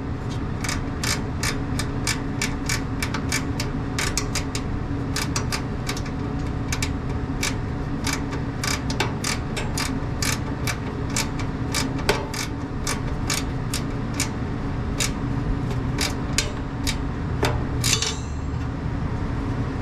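A hand ratchet clicks steadily, about two clicks a second, as the condenser fan motor's mounting screws are tightened. A steady low machinery hum runs underneath.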